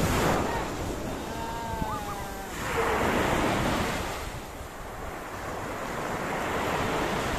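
Small waves breaking and washing up a sandy beach, the surf rising in three surges a few seconds apart.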